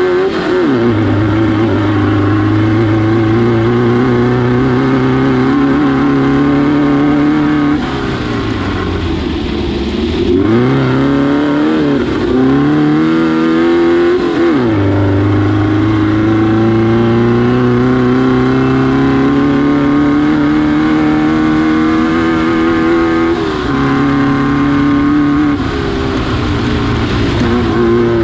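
Air-cooled VW engine of a Class 9 off-road race car running hard, its pitch slowly climbing as it pulls. About eight seconds in it drops away, then falls and rises several times before pulling steadily again, with one more short dip about three-quarters of the way through.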